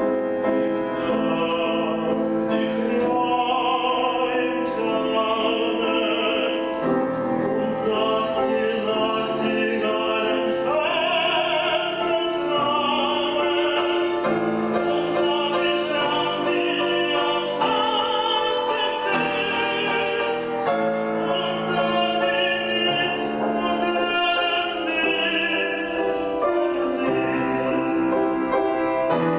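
Classically trained tenor singing an art song with piano accompaniment: long held notes with vibrato over sustained piano chords.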